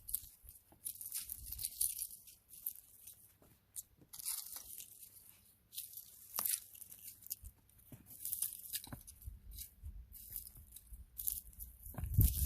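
Irregular dry rustling and crunching of dried marigold heads and debris being gathered up, in short scrapes about a second apart. A louder low rumble begins just at the end.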